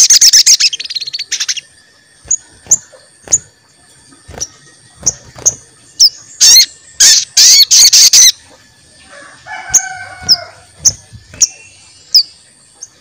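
Sogon bird calling with sharp, high 'cuit cuit' chirps, some single and spaced, others in fast loud bursts right at the start and again from about six to eight seconds in. A lower, harsher call comes about ten seconds in.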